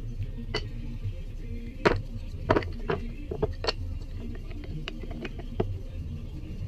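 Background music with low bass notes, over scattered sharp clicks and knocks of wooden handle scales being handled and fitted against a steel hatchet tang.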